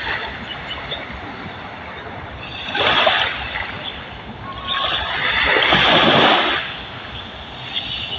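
Small waves washing in on the shore: a short surge about three seconds in and a longer one that swells and falls away over a second and a half, over a steady wash of water.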